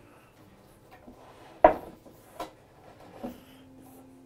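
Red oak boards being shifted on a workbench, knocking together: one loud wooden clunk about a second and a half in, then two lighter knocks.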